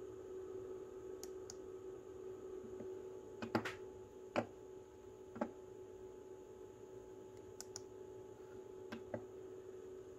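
A computer mouse clicking about nine times, several of them quick double-clicks, over a faint steady electrical hum.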